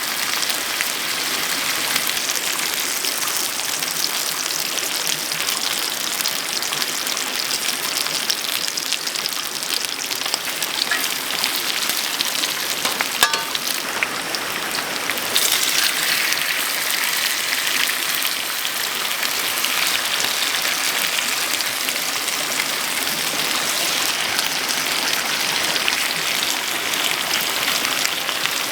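Steady patter and hiss of rain, many fine drops, growing a little heavier about 15 seconds in.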